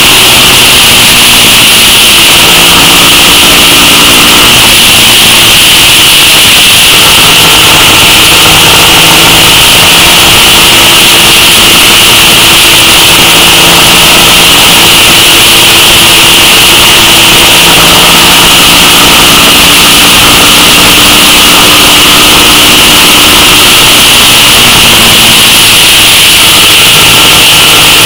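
A 2000 Suzuki SV650's 645 cc V-twin engine running under way, recorded from the handlebars. Its note shifts in pitch several times as the revs change, under a loud, even hiss of wind and road noise.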